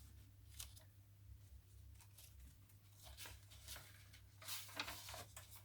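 Faint rustling and soft ticks of paper and card being handled, the pages and tags of a handmade journal. The rustling is busiest near the end, over a low steady hum.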